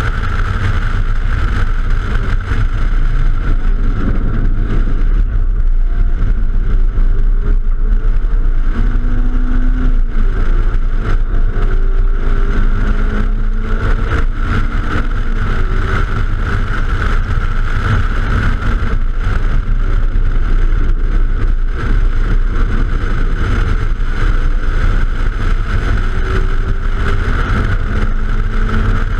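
Silver hatchback at racing speed on a track, heard from a camera on the outside of the door: heavy wind rush and rumble over the mic with engine and tyre noise, the engine note faintly climbing and breaking off again and again as it pulls through the gears.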